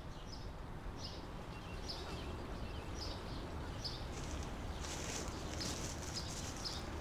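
Outdoor lakeside ambience: small birds chirping in short high notes about once or twice a second over a steady low background noise, with a high hiss joining about five seconds in.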